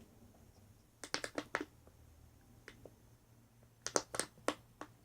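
Light clicks and taps from a plastic glue bottle and mixing container being handled while glue is poured, in two quick flurries of about five clicks each, one about a second in and one about four seconds in.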